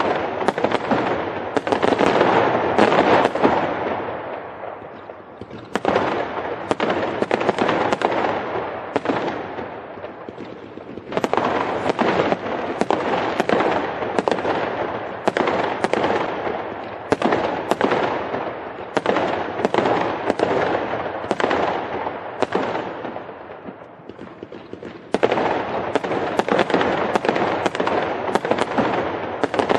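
Fireworks crackling: dense volleys of rapid, sharp pops. Each volley dies away, and a fresh loud burst starts about six, eleven and twenty-five seconds in.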